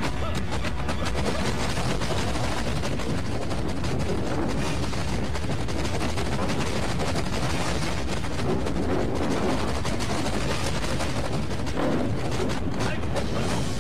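Kung fu film fight sound effects: a fast, unbroken clatter of punches, blocks and arm strikes landing in quick succession.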